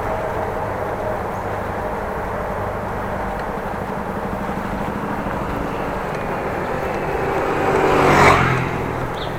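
Steady wind and road noise of riding a bicycle, with a motor vehicle passing close by: it swells, peaks about eight seconds in, and fades quickly.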